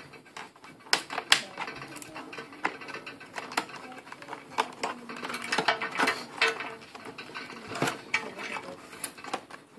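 Scissors cutting open a stiff plastic clamshell blister pack: irregular sharp snips, clicks and crackles of the hard plastic.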